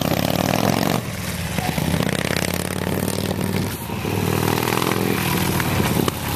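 Harley-Davidson V-twin motorcycle engine running as the bike rides along the street, its pitch rising and falling with the throttle. The sound jumps abruptly about a second in and again about four seconds in.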